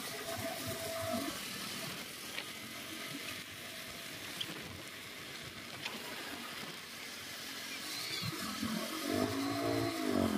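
A vehicle running along a road, heard as a steady rushing noise. Near the end a pitched engine-like note rises and falls.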